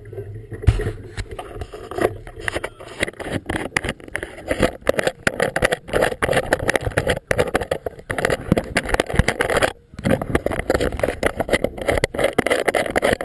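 Wind and choppy water splashing at a boat-mounted GoPro, heard as a dense, rough crackle with rumble underneath that briefly drops out about ten seconds in.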